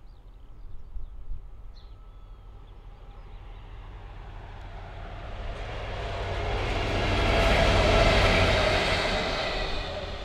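Pair of Class 66 diesel locomotives running light, coupled together, approaching and passing close by. Their EMD two-stroke V12 engines and wheels on the rails grow steadily louder to a peak about eight seconds in, then fade.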